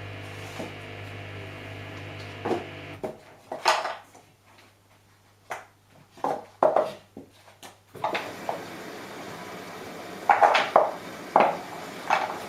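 Samsung Eco Bubble front-loading washing machine on a cotton wash cycle. A steady motor hum cuts off suddenly about three seconds in, followed by scattered clunks and knocks. Around the middle a steady running noise comes back with a run of louder thuds as the drum turns the wet load.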